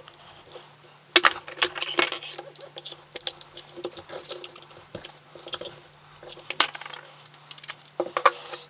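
Opened battery pack's hard plastic casing and cells being handled: scattered clicks and light clatter, busiest about a second in and again near the end, over a faint steady low hum.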